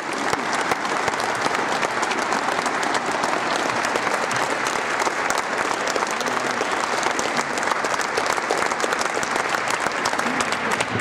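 Audience applause in a gymnasium: many people clapping steadily, welcoming a newly introduced speaker to the podium.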